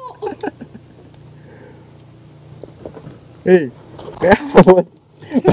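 Steady, high-pitched insect chorus from the mangrove, with a person's voice speaking briefly twice, about three and a half and four and a half seconds in.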